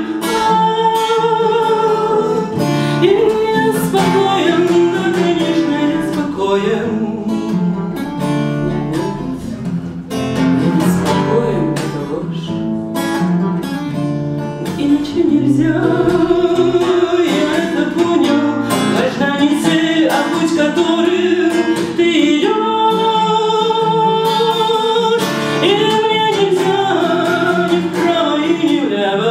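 A woman singing a Russian bard song, accompanying herself on an acoustic guitar.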